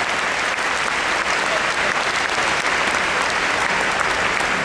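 Audience applauding steadily, the dense clapping of a large crowd greeting an honoree whose name has just been called at a degree ceremony.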